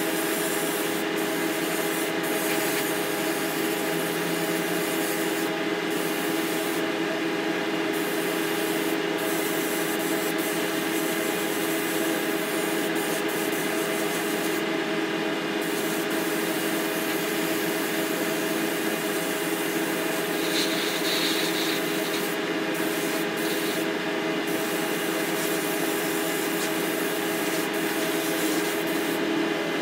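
Paint spray booth running with a steady fan hum and the hiss of a compressed-air paint spray gun, whose high hiss stops briefly several times as the trigger is let off between passes.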